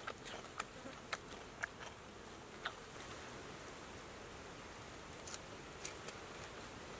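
Faint mouth clicks and lip smacks of someone eating: about five in the first three seconds and two more a little after five seconds in, over a steady faint hiss.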